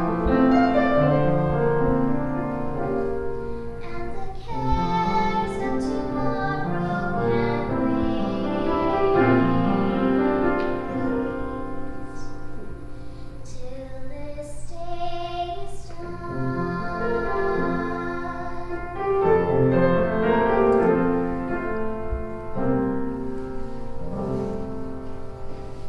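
A young girl singing a slow folk song solo, accompanied on upright piano.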